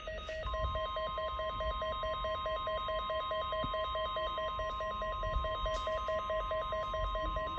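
NOAA Weather Radio 1050 Hz warning alarm tone, a single steady high tone, starting about half a second in. It is sent during the weekly test to trip alert receivers. Under it runs a rapid, evenly pulsing buzz.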